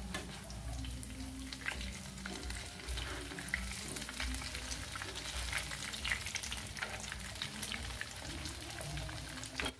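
Battered fern (paku) fritters shallow-frying in hot oil in a nonstick pan: a steady sizzle with many small crackles and pops.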